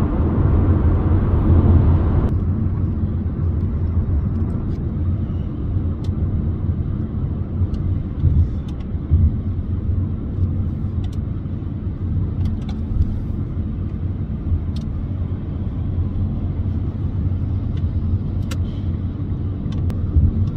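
Steady low rumble of road and engine noise from a car cruising at motorway speed, heard inside the cabin. A brighter hiss drops away about two seconds in, and a few faint ticks come through.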